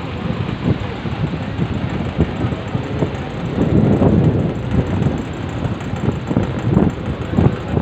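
Wind buffeting the microphone aboard a moving river passenger launch, in irregular low gusts over the steady rumble of the boat under way.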